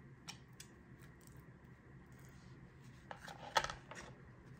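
Faint scraping and light crackling of a spoon spreading refried beans over a crisp corn tostada shell, with a sharper crackle about three and a half seconds in.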